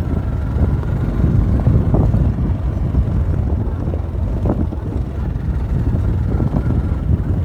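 Wind buffeting the microphone on a moving motorbike, a dense low rumble that never lets up.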